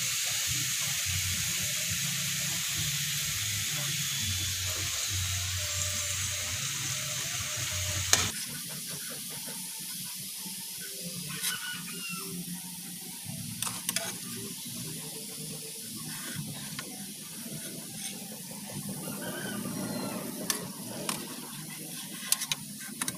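Bananas frying in hot oil and caramelised sugar in a pan, sizzling steadily while a metal spatula scrapes and clicks against the pan as the pieces are turned and lifted out. The sizzling drops abruptly quieter about eight seconds in, with occasional spatula clicks after that.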